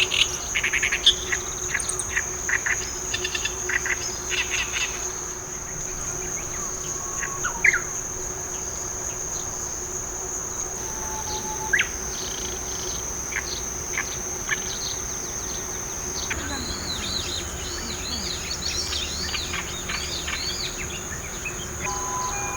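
A steady high insect trill runs under bird song. In the first few seconds an Oriental reed warbler gives harsh chattering notes; about sixteen seconds in, after a cut, a male meadow bunting sings quick arching phrases.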